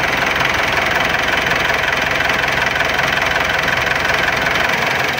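2012 Mitsubishi Pajero engine idling steadily, then switched off near the end and winding down cleanly. The odd noise at shutdown is gone: it came from a worn, loose small timing chain and its tensioner.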